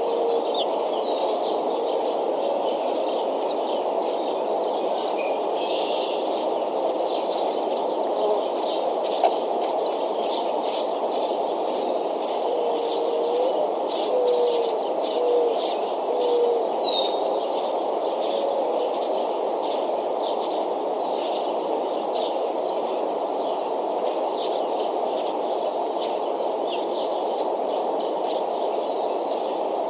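Wild songbirds chirping and singing in many short calls, thickest in the middle stretch, over a steady rushing background noise.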